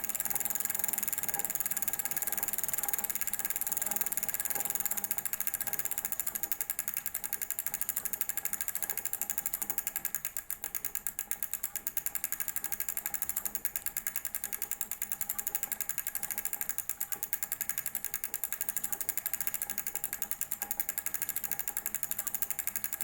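Bicycle wheel and drivetrain spinning: a steady whir with rapid, even mechanical clicking that dips slightly in level about ten seconds in.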